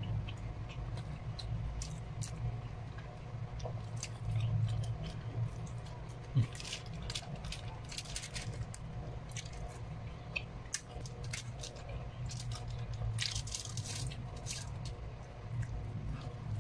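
Two people eating by hand: quiet chewing and mouth sounds, with small scattered clicks as fingers pick at rice and food on a foil-lined tray, over a steady low hum. A single short thump about six seconds in.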